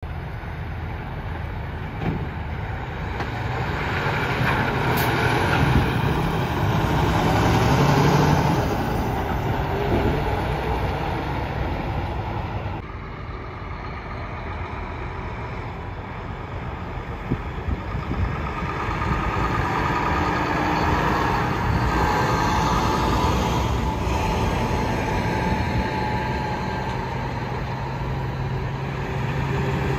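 Diesel trucks and cars passing through a road intersection. The engine noise swells to its loudest at about eight seconds, eases off in the middle, then rises again with a steady engine drone over the last ten seconds as a saddle-mounted drive-away convoy of trucks approaches.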